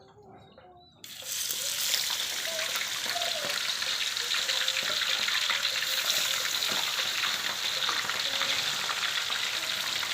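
Potatoes frying in hot oil: a dense crackling sizzle that starts suddenly about a second in and carries on steadily.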